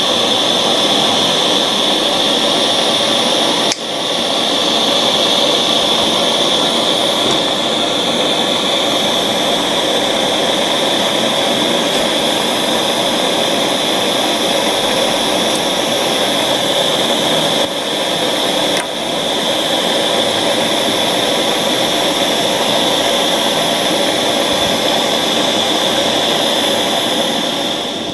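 A loud, steady rushing hiss that runs unbroken apart from two brief dips, about four seconds in and again near the middle, and fades away at the end.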